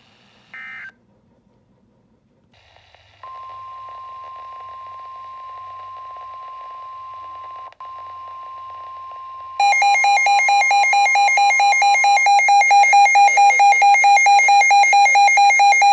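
Weather-alert broadcast tones: a brief data chirp, then a steady high single alert tone lasting about nine seconds, the warning alarm that opens a NOAA Weather Radio warning. About ten seconds in, a much louder electronic alarm cuts in over it, warbling and pulsing about three times a second.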